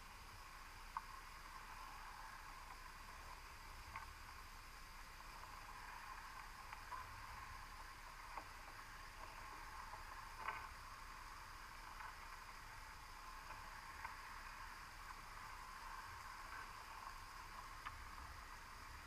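Faint, steady underwater hiss recorded by a GoPro in a sealed housing, with a few faint, irregular clicks a couple of seconds apart.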